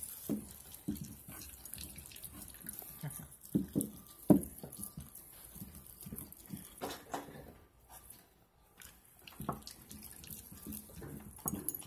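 Husky and malamute puppies gnawing and licking raw chicken drumsticks, bone and all: wet smacking and licking broken by irregular crunches of bone, the loudest about four seconds in, with a short lull around eight seconds in.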